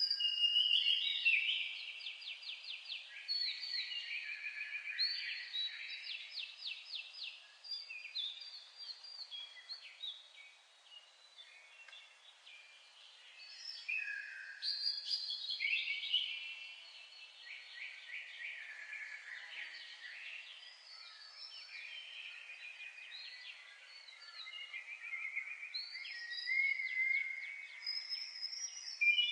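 Songbirds singing continuously in long, busy phrases of fast trills and rapid repeated high notes, swelling and fading every few seconds.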